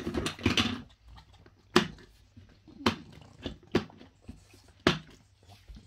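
French bulldog eating dry kibble from a stainless steel bowl: a burst of chewing at the start, then a handful of sharp crunches and clicks of kibble against the metal bowl, spaced about a second apart.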